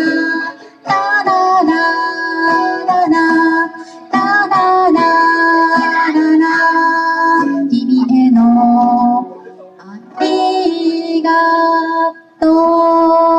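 Guitar playing the instrumental outro of a pop ballad: sustained chords in phrases, with short breaks between them.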